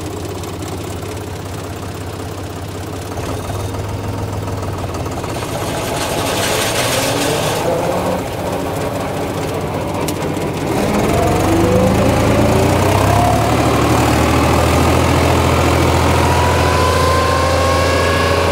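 International Harvester tractor's diesel engine running steadily, then rising in level about ten seconds in as the drive to the drum mower is engaged, with a slowly climbing whine as it comes up to speed.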